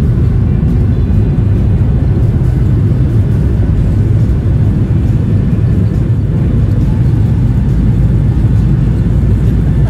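Cabin noise of a Boeing 737 jet airliner around takeoff: a loud, steady low rumble from the engines and airflow.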